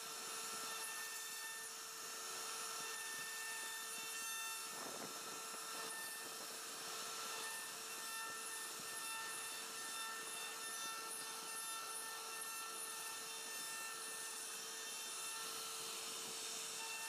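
CNC router spindle running with a steady whine while its bit cuts relief grooves into a wooden panel, the cutting adding a continuous rough rasp over the whine.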